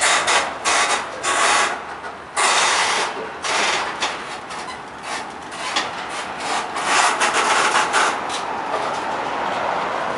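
Freight train of covered hopper cars rolling past close by: steel wheels on the rails making a noise that swells and fades unevenly every second or so, with no squeal or horn.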